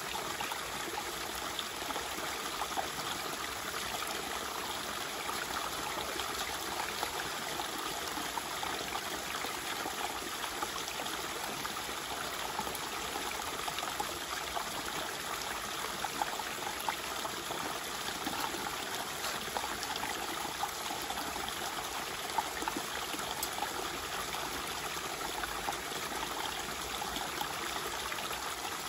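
Shallow stream running steadily over stones, with occasional small splashes as a gold-prospecting sluice is handled in the water and its mat is rinsed out into a gold pan.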